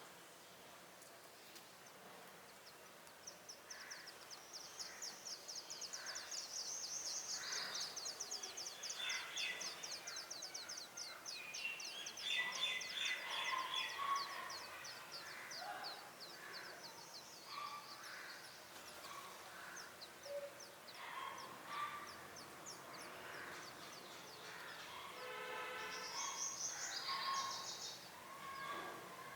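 Birds calling: a long, fast, high trill of rapid ticks for about twelve seconds, over and among scattered short chirps, with a louder burst of calls near the end.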